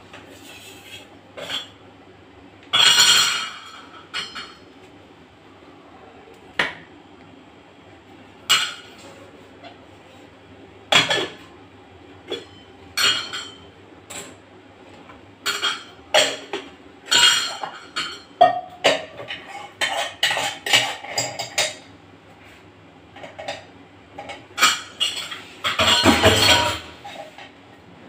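Steel pots and kitchen utensils clattering and clinking as they are handled and set down on a kitchen counter: irregular knocks and clinks, with two longer, louder bouts of clatter about 3 seconds in and near the end. A faint steady low hum lies underneath.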